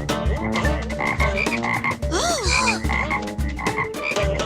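Cartoon ice cream truck jingle played on a jumble of noise-making gadgets: a croaking, unmusical clatter of heavy low thumps at an uneven beat, with wobbling, sliding tones over a steady hum. It is plainly wrong for an ice cream jingle and is called a weird sound.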